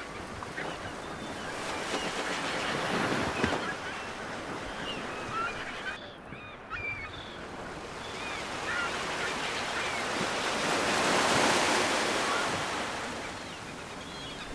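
Ocean surf: waves washing in and drawing back in slow swells, the biggest one near the end, with birds giving short calls over it.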